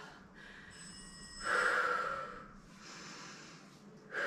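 A woman breathing hard, out of breath after intense jump squats and lunges: a loud exhale about a second and a half in, quieter breaths, then another heavy exhale near the end.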